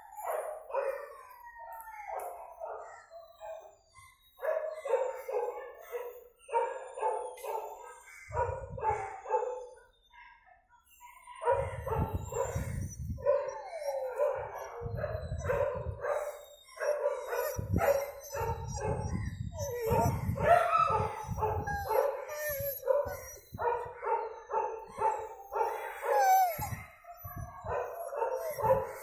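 Dogs barking over and over, the barks coming thick and overlapping, with a few drawn-out howls mixed in.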